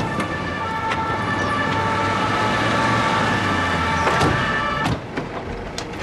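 Police vehicle siren sounding steadily, cutting off about five seconds in, followed by a couple of sharp knocks.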